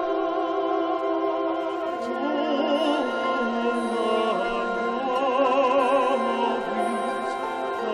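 Mixed choir of men and women singing through handheld microphones in sustained notes with vibrato, moving to a new chord every couple of seconds.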